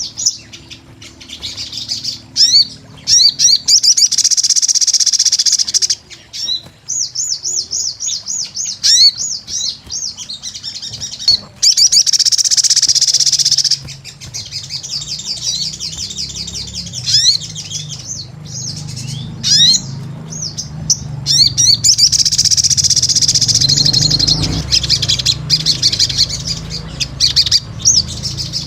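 A crimson sunbird (sogon) singing energetically in long, rapid, high-pitched trilling phrases, with short chirps in the pauses between them. A faint low hum runs underneath.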